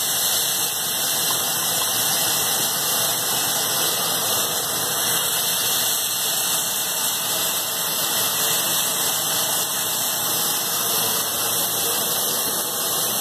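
Chicken drumsticks and onions sizzling in oil in a frying pan over medium heat, a steady hiss.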